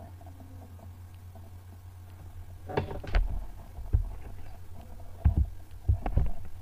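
Steady low hum, then several irregular dull thumps and knocks starting about three seconds in.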